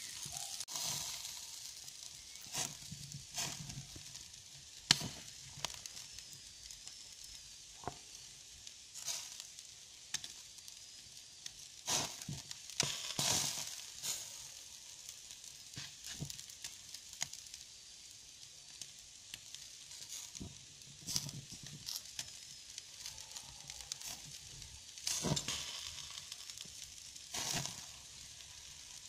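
Meat skewers sizzling in a wire grill basket over hot embers: a steady hiss broken by irregular sharp pops and crackles, the loudest about five seconds in.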